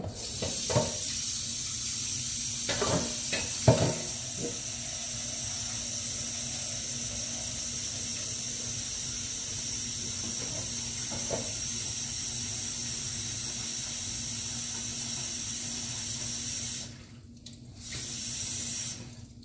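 Kitchen tap running steadily into a pot as it fills with water, with a few knocks of the pot in the first few seconds. The water is shut off near the end, turned on again briefly, then stopped.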